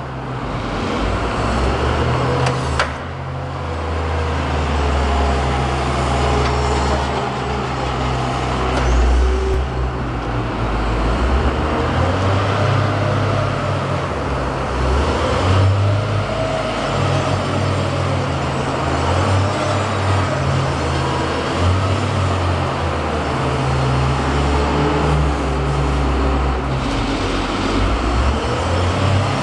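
Hyundai wheel loader's diesel engine running and revving up and down as the machine drives and lifts cotton bales with a clamp attachment. A single sharp click about three seconds in.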